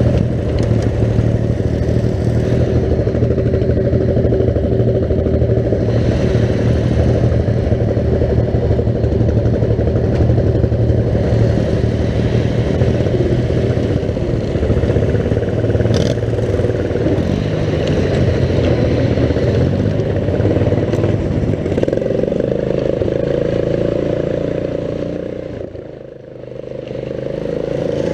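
Riding lawn mower engines running steadily as the mowers drive up a dirt trail. The engine note shifts slightly later on and the sound dips briefly near the end before picking back up.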